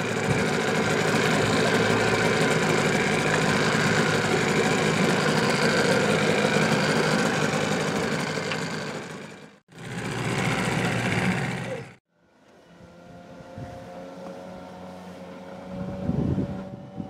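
1986 Johnson 15 hp two-stroke outboard running at idle close by, steady. After two abrupt cuts it is heard more faintly and from farther off, a steady hum with a clear tone.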